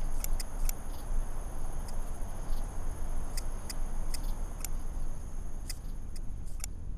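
A small knife cutting characters into a bamboo slip: about a dozen sharp scratches and ticks at irregular intervals. Behind them are a low hiss and a steady high-pitched whine.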